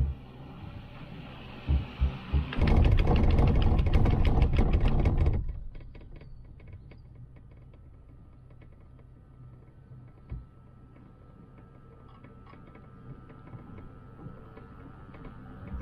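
Gondola cabin running over a lift tower's sheave rollers: a few thumps, then about three seconds of loud rapid clattering and rumbling, dropping suddenly to a faint steady hum with light ticking as the cabin runs on along the haul cable.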